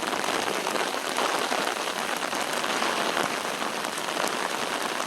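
Heavy rain falling steadily on an umbrella held just above the phone: an even hiss with many small, quick drop hits.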